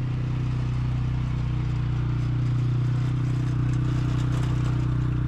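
A vehicle engine running steadily at an even speed, a low drone that grows slightly louder about two and a half seconds in.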